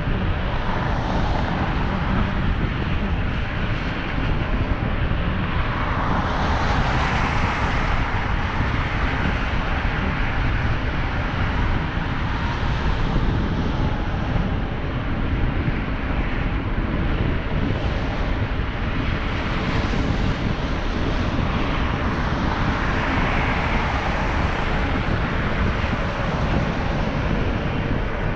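Wind rushing over the microphone of an action camera carried along on a bicycle, a steady low rumble mixed with tyre noise on the paved trail, swelling a few times.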